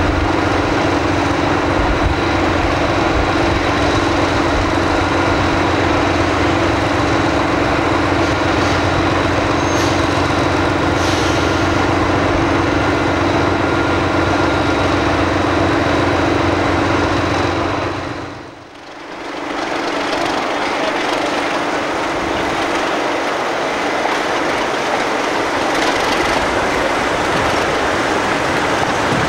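British Rail diesel locomotive running with a steady engine hum. About two-thirds through, the sound drops away briefly, then a train rolls over the track.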